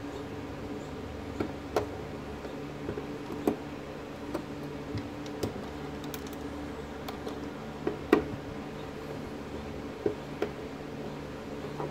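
Scattered light clicks and taps of a small hand tool and wire leads working a plastic screw terminal block during wiring, the sharpest click about 8 seconds in, over a steady low hum.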